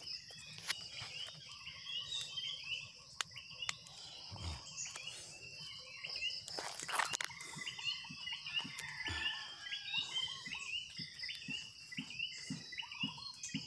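Night insects trilling steadily at a high pitch, with many short chirping calls over them. Scattered clicks and a brief rustle about seven seconds in come from hands working through twigs and leaf litter to pull out mushrooms.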